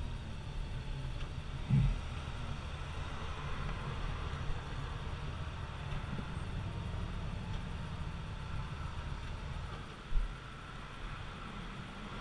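Touring motorcycle cruising at road speed: a steady low engine and road drone with wind on the microphone, and two short low thumps, about two seconds in and near the ten-second mark.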